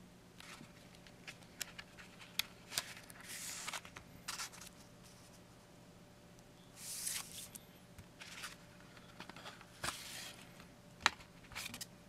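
Cardboard CD digipak and paper booklet being handled: scattered small clicks, scrapes and short rustles as the case is opened and the booklet is taken out, with two longer rustles about three and seven seconds in.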